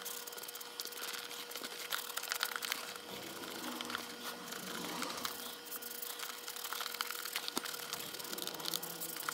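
A cloth rubbing and wiping over the leather of a Wilson A2K baseball glove, a scratchy rustle with many small crackles. A faint steady hum sits underneath.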